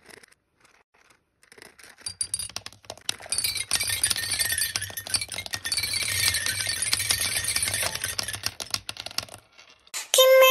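Small balls poured from a plastic bag, clattering and rattling onto the bars of a toy xylophone in a dense run of clicks with faint ringing tones, starting about two seconds in. Children's music begins at the very end.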